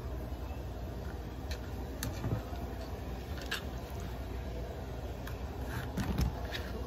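Clear plastic bag crinkling and ticking against the phone's microphone in a few short, faint crackles, with a small cluster near the end, over a steady low hum.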